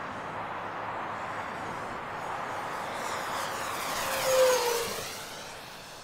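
Electric RC warbird, a FlightLine Ta 152H on a 4S battery, making a low fast pass: the brushless motor and propeller whine swells to a peak about four seconds in, drops in pitch as the model goes by, and fades.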